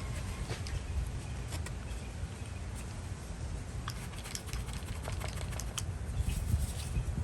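Scattered light clicks and taps of a vintage hand ratchet being handled and turned over while it is examined, over a steady low rumble.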